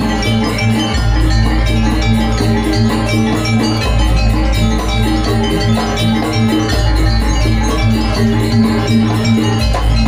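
Janger dance music played by a gamelan-style ensemble: struck metallophones and drums keep up a steady, dense pattern over a deep bass note that shifts about every three seconds.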